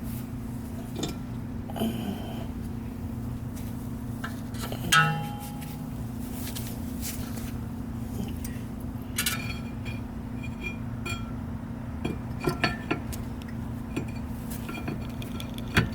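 Scattered metallic clinks and scrapes of a brake caliper being worked back over new brake pads, with one louder ringing clink about five seconds in and a cluster of taps near the end.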